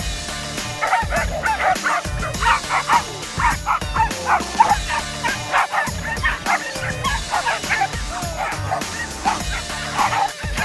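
A group of small dogs barking and yipping, many short overlapping barks throughout, over background music with a steady beat.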